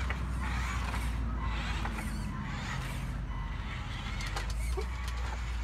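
Radio-controlled Western Star dump truck driving slowly over dirt, its electric drive running with a steady low rumble, with a series of short squeaky, rasping sounds and a few light ticks over it.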